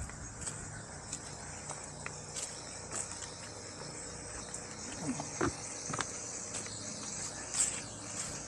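Steady high-pitched chorus of insects, with scattered light footsteps and clicks, a few of them stronger about five to six seconds in, as a person and two small dogs walk across grass and a paver path.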